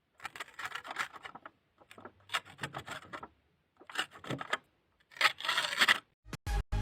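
Slime being squeezed and pressed by hand, with crackly clicking and squishing noises in four bursts of about a second each. Music with a strong, regular beat starts near the end.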